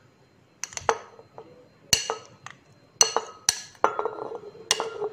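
Glass bowl knocking against a glass blender jar as peeled jamun fruit are tipped in: about six sharp clinks, irregularly spaced, some ringing briefly.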